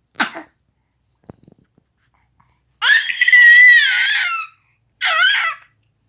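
Baby screaming in high-pitched shrieks: a short cry at the start, then a long wail about three seconds in and a shorter one about five seconds in, each falling in pitch at its end.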